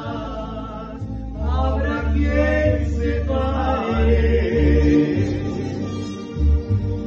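A woman and a man singing a Spanish-language ballad duet into a handheld microphone over instrumental accompaniment, with long held notes and a short break in the voices about a second in.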